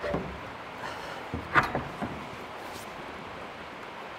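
Hinged wooden lid of a chuck wagon's chuck box being swung down open into a table, with a couple of wooden knocks about a second and a half in.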